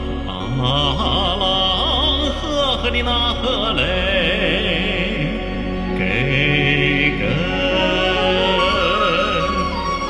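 A man singing a Chinese folk song with a wide vibrato over a recorded instrumental backing track.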